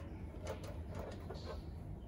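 A Beurer analogue bathroom scale being pressed down and released by hand: a few light plastic clicks and knocks from the platform and its spring mechanism as the dial needle swings, over a low steady hum.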